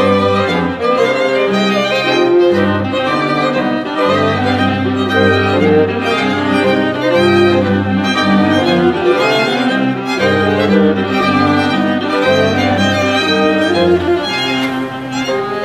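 Background music: bowed strings over long held bass notes.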